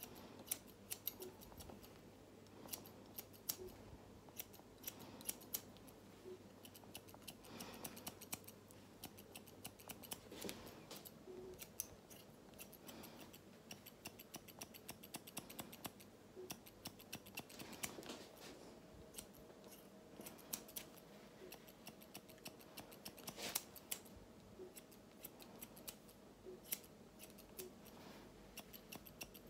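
Hairdressing scissors snipping faintly in quick runs of small clicks over a comb, cutting short dry hair to blend the finished haircut.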